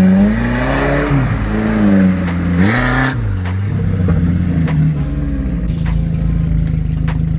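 Off-road vehicle engine revving up and down several times, then settling to a steady run from about four seconds in, with scattered sharp clicks.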